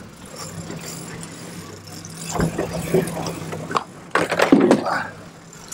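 Boat engine running with a steady low hum, with knocks and handling clatter, loudest about four seconds in, as a plastic tackle tray is moved on the deck.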